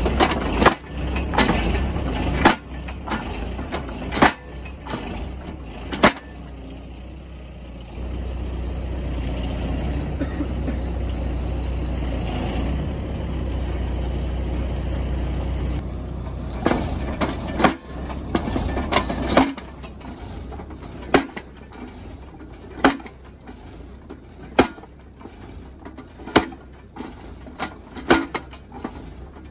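Hydraulic post driver mounted on a forklift hammering a wooden straining post into the ground: sharp blows over the forklift's engine running. A run of blows in the first six seconds, then several seconds of engine alone, then the blows resume about every two seconds.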